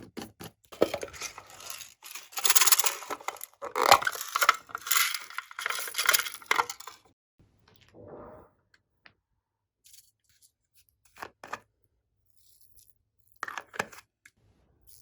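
Slime being worked by hand, giving sticky crackling and popping in dense bursts through the first half. After that it is mostly quiet with a few scattered clicks and one more short burst near the end.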